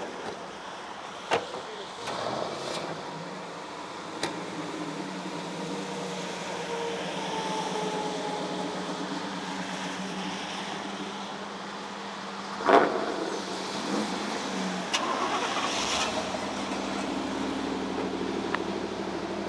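Car engines idling steadily, with several sharp knocks of car doors being shut; the loudest slam comes about two-thirds of the way through, and a deeper engine rumble joins near the end.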